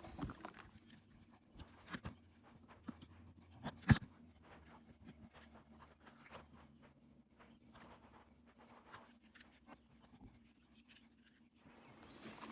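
Faint scattered clicks and handling noises of a pistol being worked by hand, with a sharper click about four seconds in.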